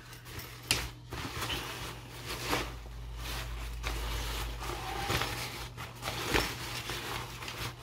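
A thin fabric foldable backpack rustling and crinkling as it is handled and folded by hand to be stuffed back into its pouch, with several sharper rustles along the way.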